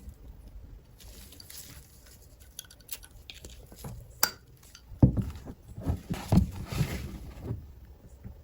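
Perfume box and bottle being handled: a string of light clicks and taps, a sharp click about four seconds in, then several dull knocks.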